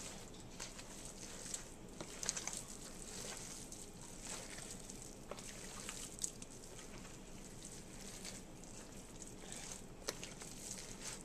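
Hands squishing and kneading raw ground-beef meatloaf mix in a plastic container: faint, irregular wet squelches, with a sharper tap a couple of times.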